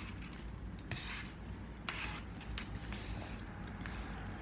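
A metal fork cutting through an omelette and scraping on a disposable plate: a few short rasping scrapes.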